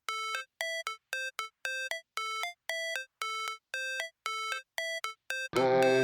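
Electronic outro music: a run of short, bright synth notes, about three a second, with dead silence between them. Near the end, fuller music with a deep bass line comes in.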